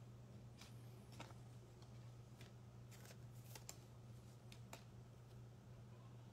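Near silence: faint clicks and light rustles of trading cards being handled and laid down, over a steady low hum.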